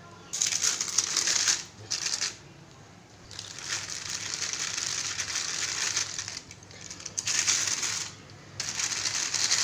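Thin plastic sheet crinkling and rustling as it is pressed flat by hand and rolled over with a wooden rolling pin to spread cashew dough beneath it, in several stretches with short pauses between them.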